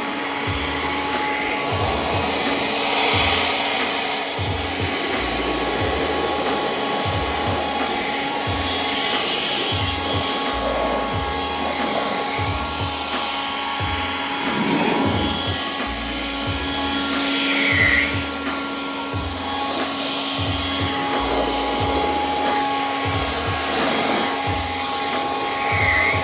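Electric air blower running steadily with a motor whine over a rush of air, blowing rinse water off a car's paint before towel drying.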